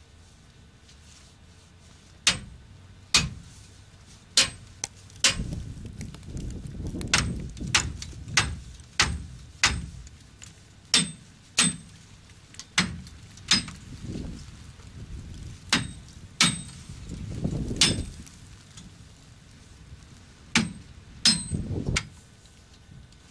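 Sharp knocks and cracks, irregular and roughly one a second, as ice is struck and broken off a rime-iced antenna tower. Low crunching rumbles sit between some of the knocks.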